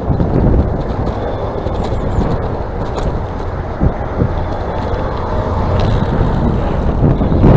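Steady wind buffeting the microphone, mixed with tyre and road noise from a moving electric bicycle.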